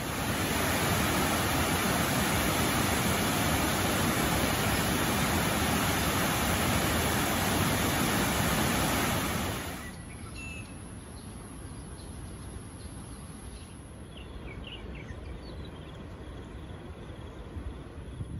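A loud, steady rushing noise that cuts off suddenly about ten seconds in, giving way to quieter outdoor background with a few faint bird chirps.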